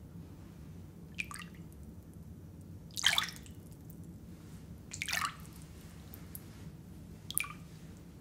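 Four short, sharp sounds about two seconds apart, the second and third loudest, over a steady low hum.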